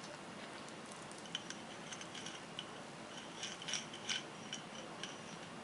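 Faint scattered clicks and light taps of a hinge-making box being clamped together, with a few sharper clicks about three and a half to four seconds in.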